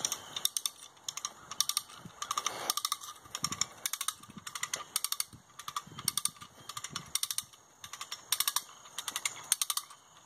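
Footsteps crunching through dry grass, each step a quick cluster of crackling clicks.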